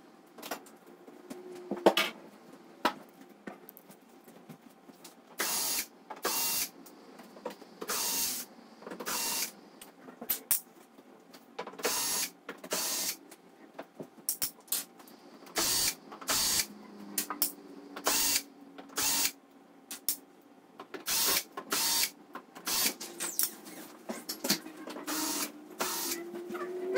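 Hands working on a disassembled LED TV's panel and frame, making a run of short scraping, rasping noises, each under a second and coming irregularly, with a couple of sharp clicks early on.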